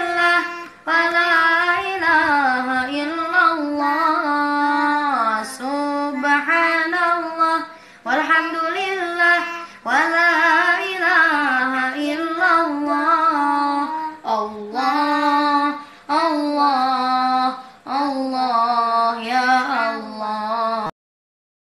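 A boy and his young sister singing sholawat together without accompaniment, in unison, in phrases of about two seconds with short breaths between. The singing cuts off suddenly near the end.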